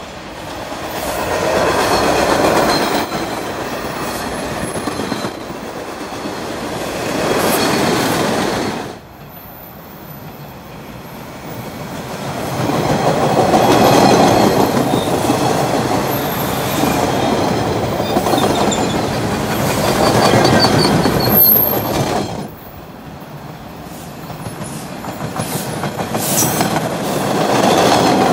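MBTA Orange Line rapid-transit train running past close by, wheels clacking over the rail joints, with a faint high wheel squeal now and then. The noise swells and dips several times as the cars go by.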